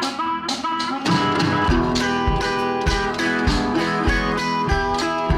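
Background music: guitar-led instrumental with a steady beat and bass coming in about a second in.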